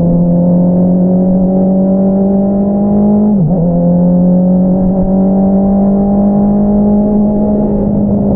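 2022 Honda CBR650R inline-four with an Akrapovič single-outlet exhaust, running under steady throttle with the revs slowly climbing. About three and a half seconds in the revs dip briefly, then pick up and keep rising gently.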